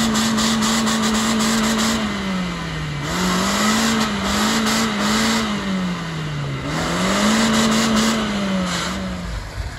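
Off-road 4x4's engine held at high revs while working through deep mud, its pitch sagging twice as the load bites and climbing back each time, then dropping away near the end.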